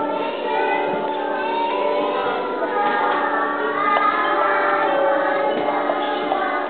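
Music with a group of young children singing along.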